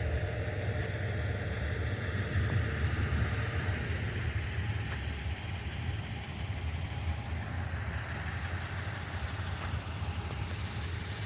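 A steady low engine rumble, like a vehicle's engine idling.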